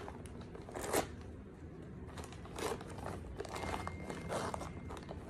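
Wrapping being torn and crumpled off a small gift box by hand, in irregular crackling rustles, the sharpest rip about a second in.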